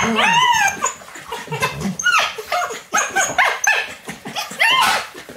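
Alaskan Malamute puppies play-fighting with a young adult malamute. They give a quick run of short yips and yelps, each call rising and falling in pitch, with barks mixed in.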